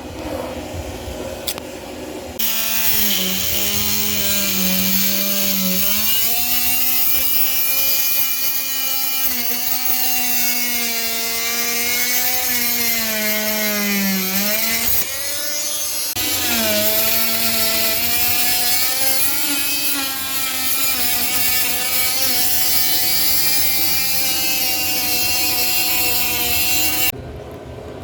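A power tool running in two long runs with a short stop about halfway, its motor whine dipping in pitch and recovering several times.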